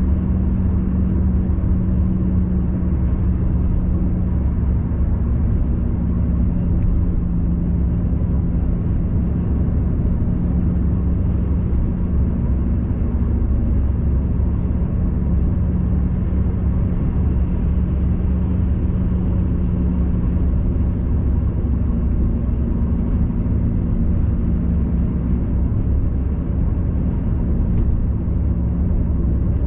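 Steady low rumble of a car cruising at motorway speed, heard from inside the cabin: tyre, road and engine noise with a faint steady hum and no change in pace.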